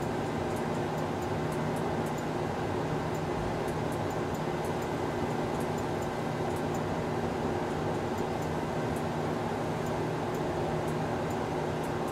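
Steady industrial hum of factory machinery and ventilation, holding several even low tones, with faint scattered ticks above it.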